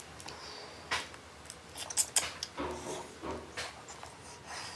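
Cooked shellfish shell being cracked and peeled by hand: a string of sharp clicks and snaps, the loudest about two seconds in. Softer chewing and mouth sounds come between them.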